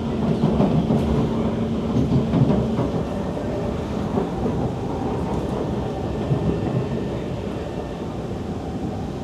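Kawasaki C151 metro train running between stations, heard from inside the car: a steady rumble of wheels on the rails, with a steady low hum that stops about three seconds in.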